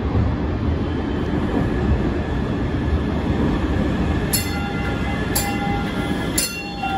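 MBTA Green Line Type 9 light-rail car pulling into an underground station platform, its wheels and motors making a steady low rumble. From about four seconds in, a bell-like ringing tone sounds about once a second over the rumble.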